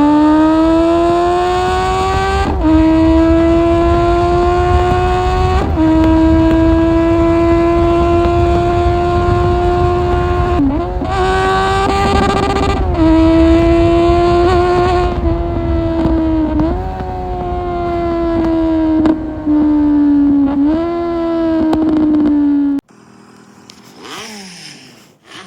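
Kawasaki Z750 inline-four engine with an Akrapovic exhaust under way, heard onboard with wind noise: the note climbs at first, then dips briefly and picks up again several times before holding fairly steady. Near the end it cuts off suddenly to a much quieter sound.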